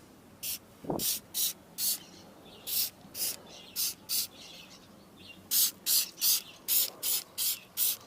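Hand trigger spray bottle squirting cleaner onto a refrigerator's fan. It gives a run of short, sharp hisses, about two a second, that pause briefly in the middle and then come faster.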